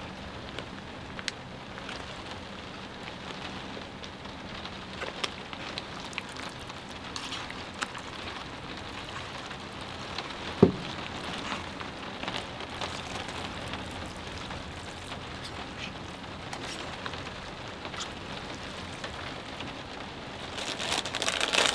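Heavy rain pattering steadily on the truck bed's camper shell, heard from inside, with scattered louder drops. A single thump comes about halfway through, and the rain noise swells near the end.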